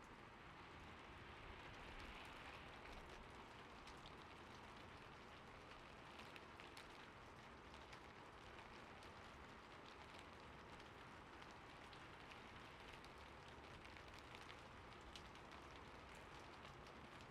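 Faint, gentle rain: a soft, steady hiss with scattered light drop ticks.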